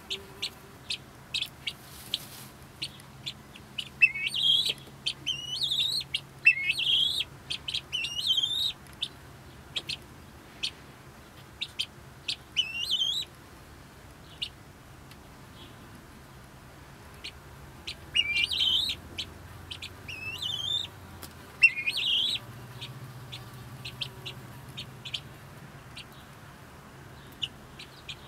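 Helmeted guinea fowl chattering: a steady run of short, sharp chirps, broken several times by bursts of louder rising squeaky calls.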